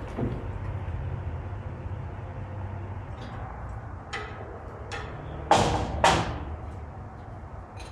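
A few light knocks, then two loud bangs about half a second apart just past the middle, over a steady low rumble.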